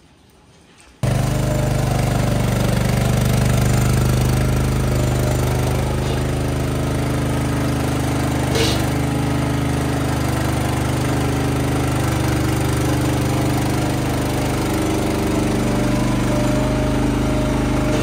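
Motor of a motorised calf-feeding milk cart running steadily with a low, even hum, starting abruptly about a second in. A single short knock about halfway through.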